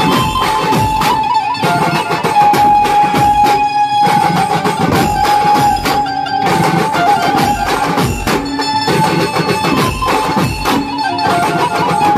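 Dhumal band music: a loud, amplified banjo (Indian bulbul tarang) melody over dense, driving drumming on large bass drums and side drums.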